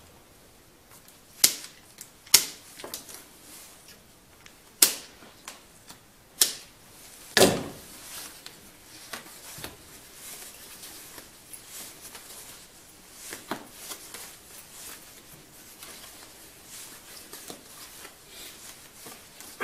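Pruning shears snipping through willow rods: about five sharp clicks in the first eight seconds, followed by faint rustling and ticking of the willow rods being woven by hand.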